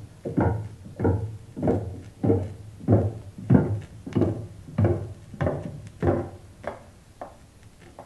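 Sound-effect passage from a stereo demonstration LP, heard through Bose 301 Series II speakers: about a dozen evenly paced thumps, roughly three every two seconds, growing weaker near the end.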